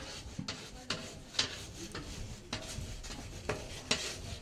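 Irregular scraping and tapping strokes, roughly two a second, from hand work in cassava-bread making.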